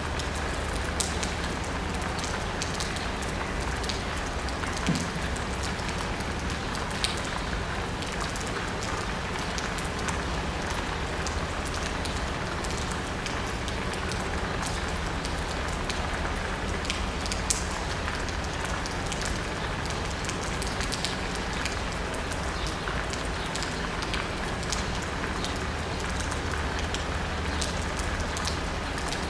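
Steady rain falling on asphalt and rooftops, with scattered sharp drips. A steady low hum of city traffic runs underneath.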